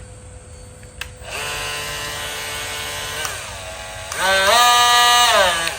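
Wallpro cordless oscillating multi-tool, on a Makita battery, running with no load: it clicks on about a second in and hums steadily, slows and drops in pitch, then speeds up to a louder, higher hum and winds down near the end as its variable speed is changed.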